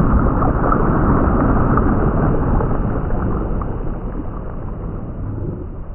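Loud, even rushing noise that fades out gradually over the second half.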